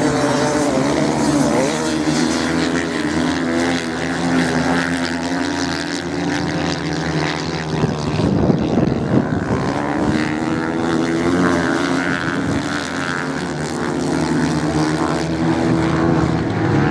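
Several off-road racing motorcycles running flat out on a sand track, their engines droning together at different pitches that rise and fall as the riders take the bend and accelerate away.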